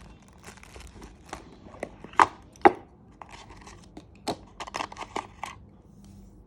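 Parcel packaging being torn open by hand: a string of short tearing and crinkling sounds, the two loudest just past two seconds in, then a quicker run of them a little after four seconds.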